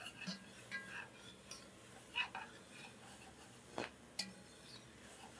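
Metal spoon stirring mushrooms and garlic in an enameled cast-iron Dutch oven: faint scrapes and scattered light clinks against the pot, with one sharper clink about two-thirds of the way through.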